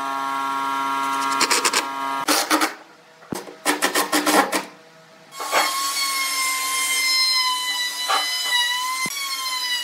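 Cordless impact driver running in short bursts as it drives screws into wood. About five and a half seconds in, a handheld electric router starts and cuts, a steady high whine whose pitch dips briefly twice under load.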